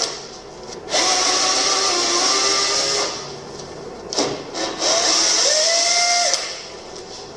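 Handheld power tool run in two bursts of about two seconds each, its motor whine rising as it spins up and then holding steady, with a few short clatters between the bursts.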